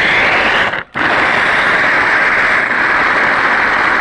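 Electric meat and vegetable grinder running with a loud, steady whir. It cuts out for a split second just before a second in, then starts again and runs on.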